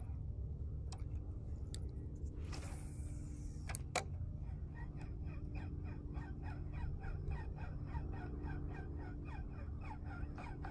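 Fishing reel being cranked to retrieve a lure: a fast, even ticking, about four or five a second, over a low steady rumble.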